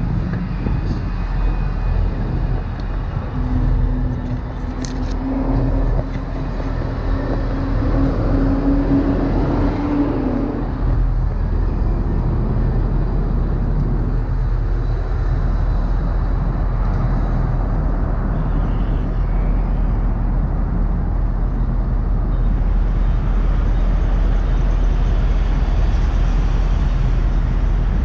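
Steady low rumble of vehicle noise, with a held low tone for several seconds near the start and a single click.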